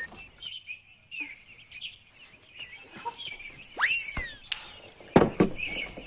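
Faint bird chirping, with a loud whistled glide that rises and falls about four seconds in, then two quick thumps near the end.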